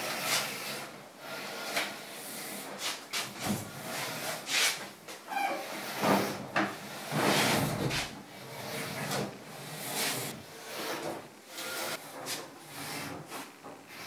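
Front-loading washing machine being rocked and slid across a tiled floor: a run of short scrapes and knocks from its feet on the tiles, with a longer scraping drag about halfway through.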